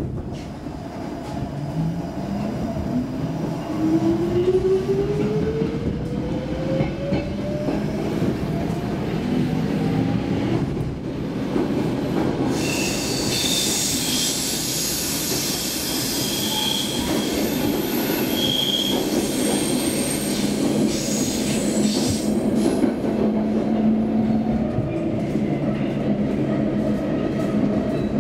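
Stockholm Metro C6 subway car pulling away from a station: the motor whine rises steadily in pitch for about ten seconds as the train accelerates. The car then runs on through the tunnel with a loud rushing rumble and brief high squeals from the wheels on the rails.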